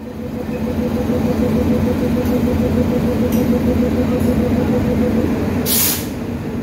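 Indian Railways WAP-4 electric locomotive hauling a passenger train slowly out of the station past the platform: a steady hum over the rumble of wheels on rails. A brief hiss comes about six seconds in.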